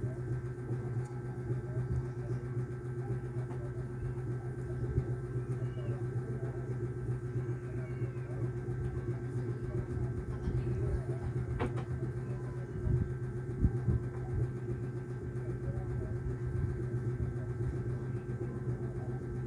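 A steady low electrical or motor hum with a fainter higher tone over it, broken by a single sharp click about twelve seconds in and a few low knocks just after.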